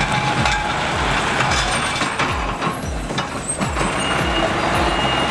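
Heavy logging truck's diesel engine running, with background music keeping a steady beat of about two low thumps a second.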